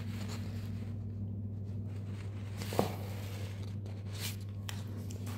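Sheets of paper being handled and shuffled, with a few brief rustles and crinkles, the sharpest about three seconds in, over a steady low hum.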